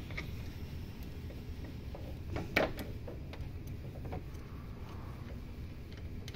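A few light metallic clicks and ticks from a refrigerant hose being fitted to a brass AC manifold gauge set, the loudest a little over two seconds in, over a steady low hum.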